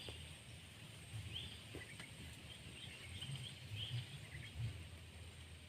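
Outdoor ambience of short bird chirps repeating every half second or so, over a thin, steady high insect tone and a low rumble.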